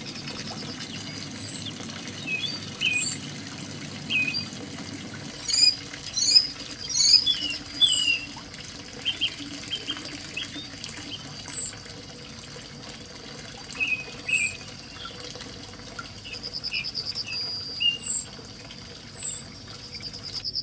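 Small birds chirping again and again, with a couple of short rapid trills, over the steady trickle of a thin stream of water pouring into a shallow pool.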